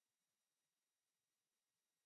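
Near silence: the film has no sound track, only a faint even hiss.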